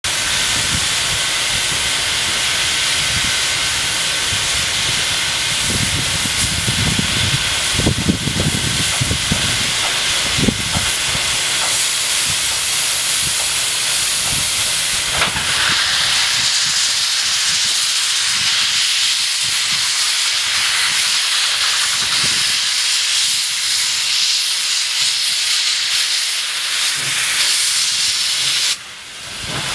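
Л-class steam locomotive standing with steam up, hissing steadily. A louder, higher hiss sets in about halfway through as steam blows out around the cylinders.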